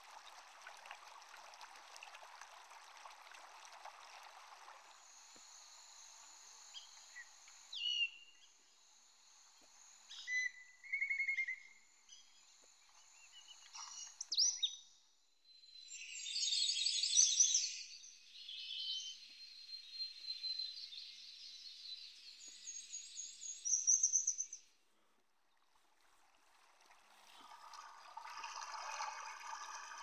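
Rainforest nature ambience: running water at first, then assorted birds chirping and calling over a steady high buzz. After a brief lull near the end, running water comes back.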